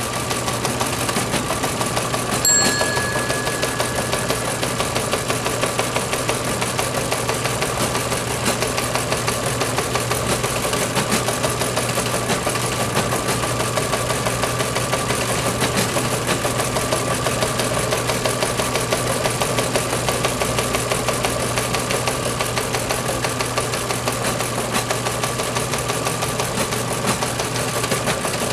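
Teletype Model 15 KSR receiving and printing a news feed at 60 words per minute: a rapid, even clatter of printing over the steady hum of its motor. A single bell ding rings out about two and a half seconds in.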